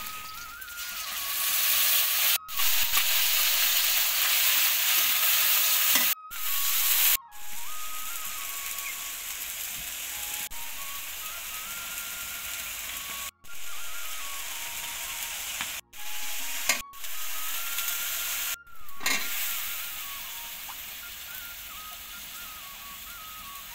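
Onions and spices frying in hot oil in an aluminium karai, sizzling loudly while a metal spatula stirs and scrapes the pan. The sizzle breaks off briefly several times.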